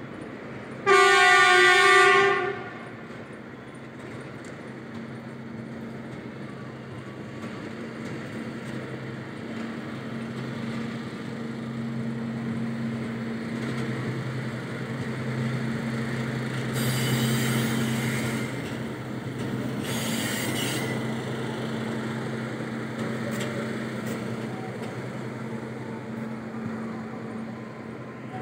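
A short horn blast about a second in, then the steady diesel engine drone of a Plasser track tamping machine running slowly along the track. The drone grows louder midway, with two short hisses.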